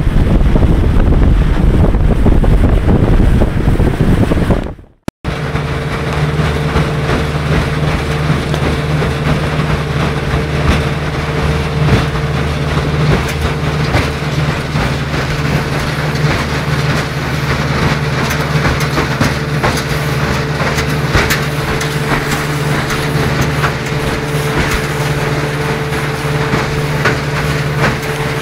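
Wind rush on the microphone with water noise from a moving motorboat, then, after an abrupt cut about five seconds in, a steady engine note with light clicking throughout: a Vikhr two-stroke outboard motor running at constant speed.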